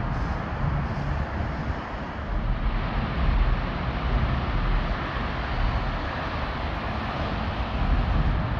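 Steady rumble of road traffic, with low gusts of wind on the microphone.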